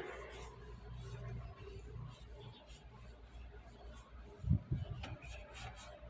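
A cloth pad rubbing and wiping finish onto a bare wooden tabletop in quick, repeated scratchy strokes. A dull thump comes about two-thirds of the way through.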